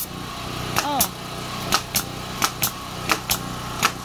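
Campbell Hausfeld pneumatic nail gun firing nails into OSB board, about eight sharp cracks spaced roughly half a second apart. A small engine runs steadily underneath.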